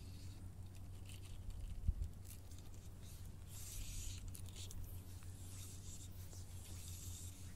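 Scratchy rubbing and handling noise from fly line and rod during a cast, over a low steady hum, with a single dull thump about two seconds in.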